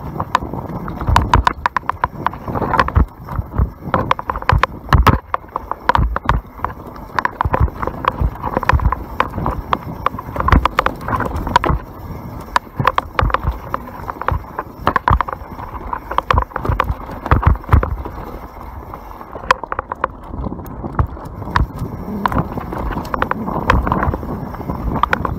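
YT Capra enduro mountain bike clattering down a rough dirt trail at speed: a dense, irregular run of knocks and rattles from the chain, frame and suspension over bumps and roots, over a steady rush of tyre and air noise.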